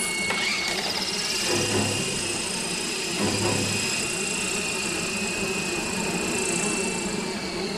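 Remote-controlled helicopter's motor and rotor running, a steady high whine that rises in pitch just after the start and then holds. A low hum swells up twice midway.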